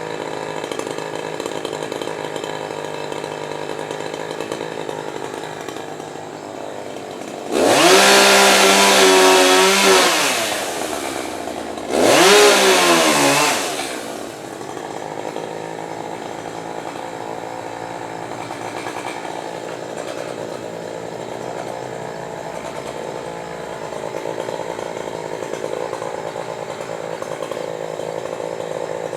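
Chainsaw idling, revved hard twice for a few seconds each, once about a quarter of the way in and again shortly after. Each time the pitch climbs sharply, then drops back to idle.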